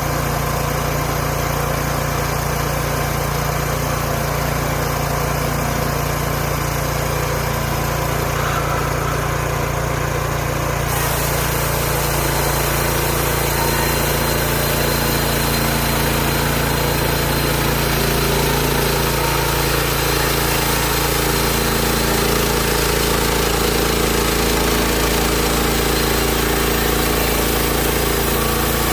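Hud-son Homesteader 30 bandsaw mill's gas engine running steadily while milling sweetgum. About eleven seconds in the sound grows fuller and slightly louder and stays that way.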